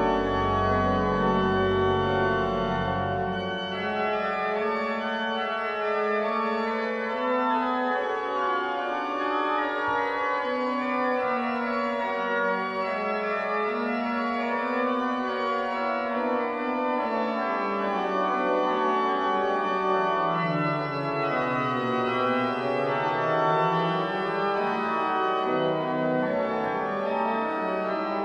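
Pipe organ playing polyphonic music in several sustained, interweaving lines. Deep bass notes stop about three and a half seconds in, and a lower voice sinks and climbs back up near the end.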